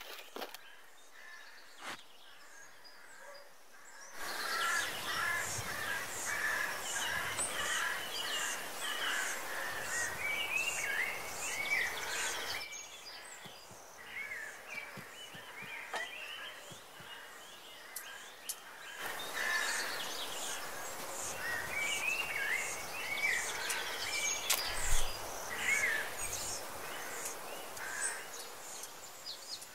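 Outdoor birdsong ambience: many birds chirping and twittering over a steady background hiss. It comes in about four seconds in, drops away for several seconds in the middle and returns. A few low thumps sound near the end.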